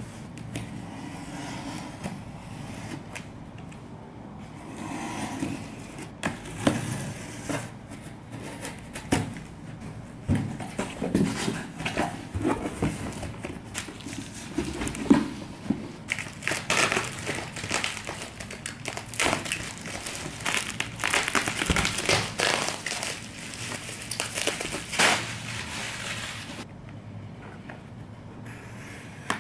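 A cardboard parcel being unpacked by hand: cardboard scraping and rustling, then a plastic-wrapped box pulled out with crinkling of the plastic, the crinkling densest in the second half and stopping a few seconds before the end.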